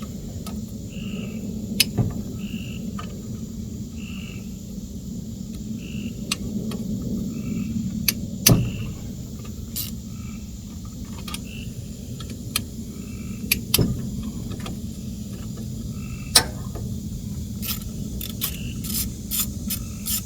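Frogs calling, a short call repeated about once a second, over a steady low hum. Scattered sharp metallic clicks and knocks of hand tools working on a small engine sound through it, with the loudest about halfway through and a run of them near the end.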